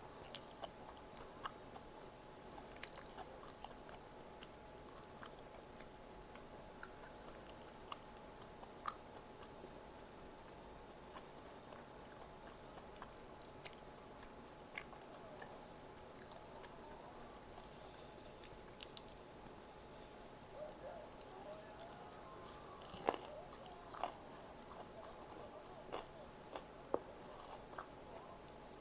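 Close-miked eating: a person chewing and biting food, with scattered soft crunches, clicks and wet mouth sounds. A faint steady hum runs underneath.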